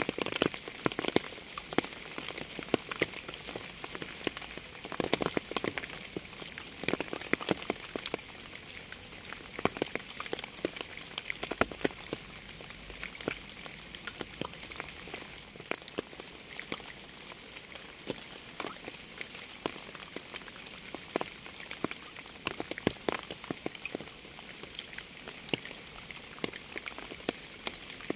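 Rain falling: a steady hiss with many separate drops striking close by at irregular moments, some much louder than the rest.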